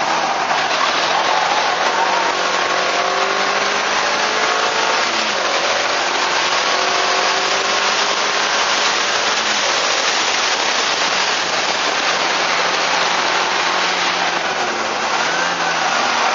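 Suzuki Swift Sport's 1.6-litre four-cylinder engine pulling hard on track, its pitch climbing and then dropping at gear changes a few seconds apart. Heavy wind and road noise on the low-mounted camera mostly covers it.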